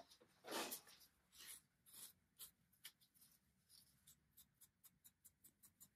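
Faint scratchy rubbing strokes of a cloth polishing a small metal fitting. A few slower strokes are followed in the second half by a quick, even back-and-forth of about four strokes a second.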